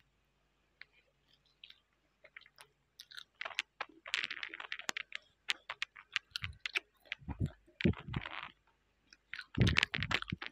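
A person chewing a soft fried mozzarella sausage with the mouth closed: wet mouth clicks and smacks that start a couple of seconds in and come in irregular clusters.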